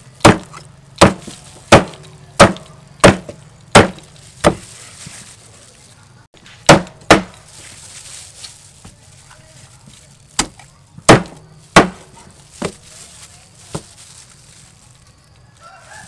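Cleaver chopping a raw whole chicken on a wooden chopping board: seven evenly spaced chops, about one every two-thirds of a second, then a pause and a few more scattered chops that grow lighter. A rooster starts crowing near the end.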